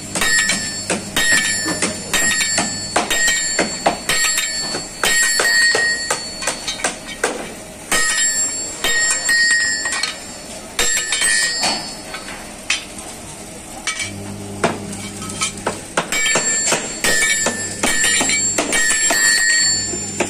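Hammer striking steel strips laid on an old tyre: runs of rapid metal clanks that ring, with short pauses between runs.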